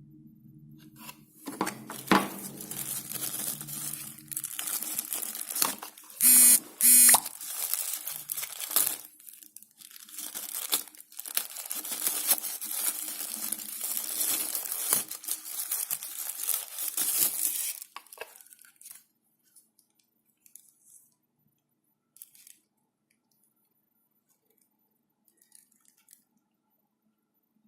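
Phone packaging being handled, torn and crinkled, with two short, loud rips about six and seven seconds in. The handling stops after about eighteen seconds, leaving only a few faint clicks.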